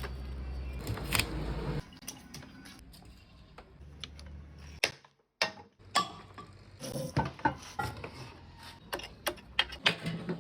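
Irregular clicks and knocks of tools and metal parts being handled while working on a 5 kVA alternator. A low hum runs under the first two seconds, and the sound briefly drops out about five seconds in.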